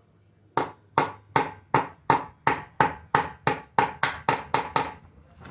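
The back of a metal wrench tapping a worn, oblonged part back into place: a run of about fourteen sharp metallic taps, roughly three a second, each ringing briefly.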